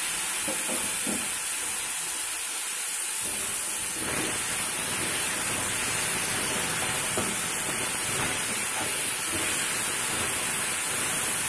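Chopped tomatoes and onions frying in oil in a kadai, stirred with a spatula: a steady sizzling hiss with a few soft scraping strokes.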